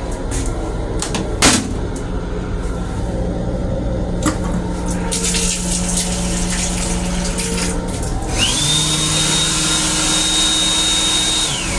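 Automatic sink faucet in an M7 commuter-train restroom running water into the basin for a few seconds, over the car's steady running rumble. There is a sharp knock about a second and a half in. Near the end a steady high whine rises in, holds, and falls away.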